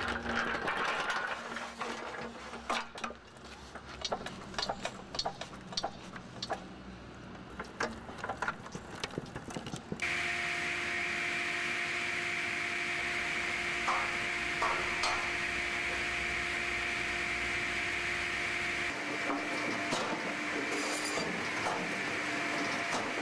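Split firewood clattering, a quick run of wooden knocks and clicks. About ten seconds in it gives way to a firewood processor and its conveyor running, a steady hum with a constant whine and a few light knocks.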